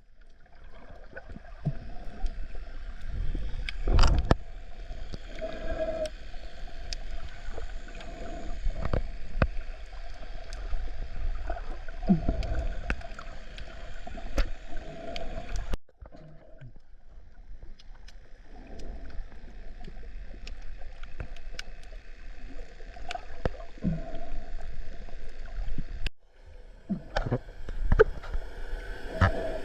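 Water sloshing and gurgling, with scattered knocks and splashes. The sound breaks off abruptly twice, at cuts between shots.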